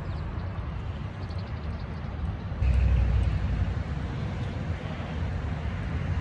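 Wind buffeting the microphone over the steady noise of road traffic. About two and a half seconds in the sound jumps abruptly louder.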